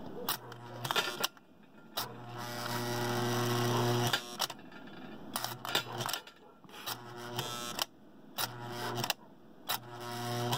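American Flyer S gauge No. 973 Gilbert's operating milk car's electric unloading mechanism buzzing in about six repeated bursts, one about two seconds long. Sharp clicks and clatters come between the bursts as milk cans are pushed out onto the unloading platform.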